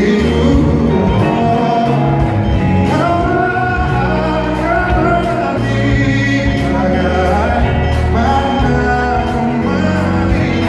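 Live pop band playing with a male lead singer holding long sung notes over bass and a steady beat, with the echo of a large hall.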